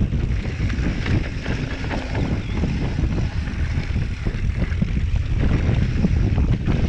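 Wind buffeting a GoPro's microphone on a downhill mountain bike run, with the Giant Trance full-suspension bike's tyres rumbling over the dirt trail and many quick rattles and knocks from the bike over rough ground.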